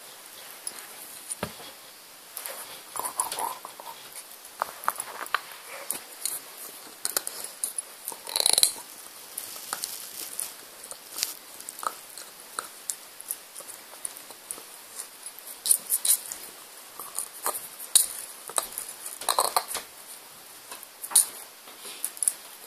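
Staffordshire bull terrier puppy gnawing a chew bone: irregular clicks and short scraping crunches of teeth on the bone, with a louder burst of chewing about a third of the way in.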